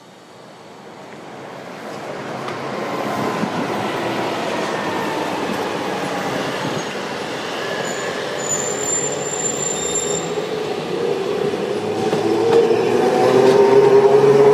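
Iyo Railway Moha 50-type streetcar rolling along the tracks, growing louder as it comes closer. A thin, high wheel squeal sounds briefly in the middle, and a steady whine swells near the end as the car passes close by.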